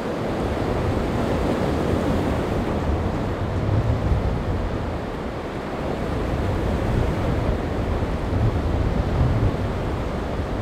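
Wind buffeting the microphone in uneven low gusts over a steady rush of waves.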